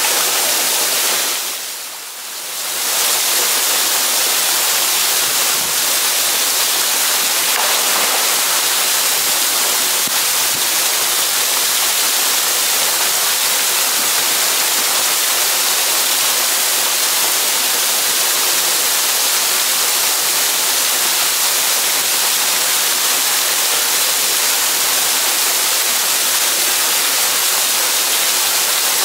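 Steady rushing of a small waterfall pouring into a rock pool, with a brief dip in level about two seconds in.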